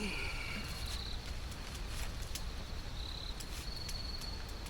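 Insects trilling in high, pulsing stretches of about a second each, with a few sharp clicks and a low background rumble.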